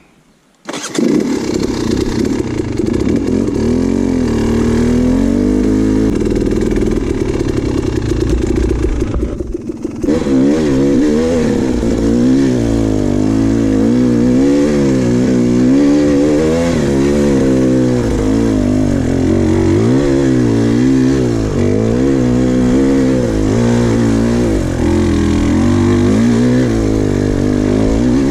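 Dirt bike engine starting up suddenly under a second in, then running with its revs rising and falling throughout, with a brief drop near ten seconds.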